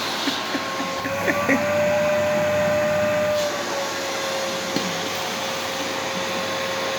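Vacuum cleaner running steadily with a constant motor whine. Its pitch and level rise a little from about a second and a half in and fall back about two seconds later, with a few light knocks in the first second and a half.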